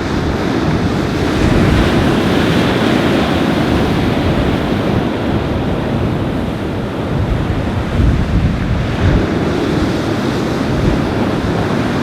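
Surf breaking on a beach, with strong wind buffeting the microphone as a gusty low rumble; the wash rises in surges, notably about two seconds in and again around eight seconds.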